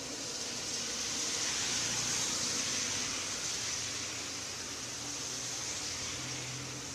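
Heavy rain falling, a dense steady hiss that swells a little about two seconds in, with a faint low hum beneath it.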